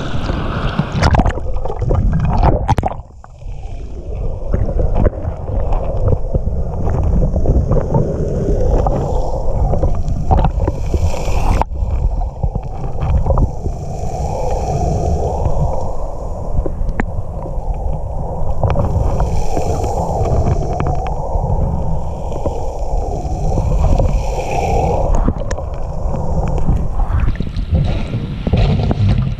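Muffled underwater rumble and gurgling of shallow wave-stirred water, heard through a camera held at and below the surface over a cobble bottom, with scattered sharp clicks. It dips briefly about three seconds in.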